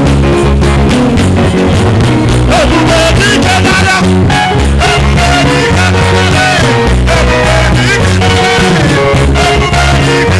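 Upbeat band music with a steady beat, bass line and guitar, with singing coming in about two and a half seconds in.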